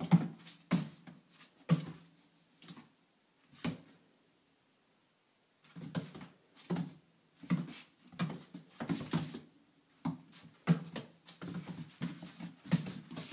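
Italian greyhound puppy's paws and claws scrabbling and thumping on a hardwood floor as it darts and pounces, in irregular clusters of quick knocks with a short pause a little before halfway.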